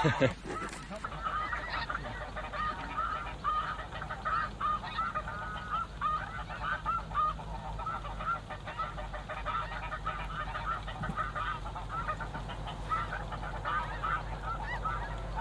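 Many snow geese calling together: a dense, unbroken chatter of short, high-pitched yelps from a large flock.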